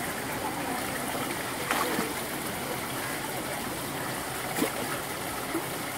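Shallow rocky stream flowing steadily, with a couple of short splashes from someone wading in the water, the first about two seconds in and another about two-thirds of the way through.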